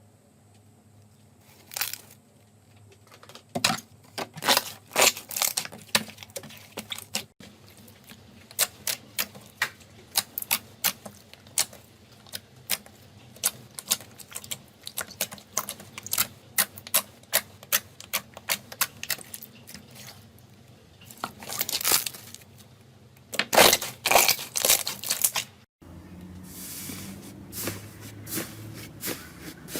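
Slime being squeezed and poked by hand, making an irregular run of sticky clicks and pops, with a few dense bursts of crackling.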